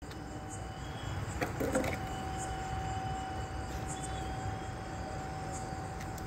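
Steady mechanical hum: one constant mid-pitched tone over a low rumble, with a short louder noise about a second and a half in.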